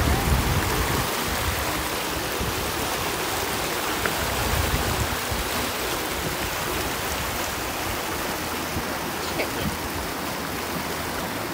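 Small river rapid rushing over rocks: a steady hiss of moving water, a little louder in the first second.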